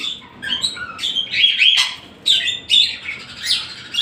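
Indian ringneck parakeets squabbling in a cage: a rapid run of short, sharp chirps and squawks.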